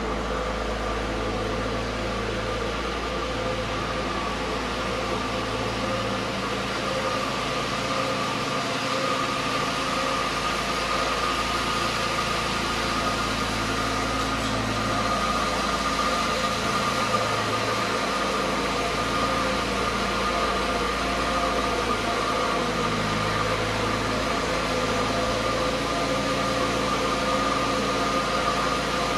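Engine-driven tree-cutting machinery running steadily: a constant whine over a noisy engine hum.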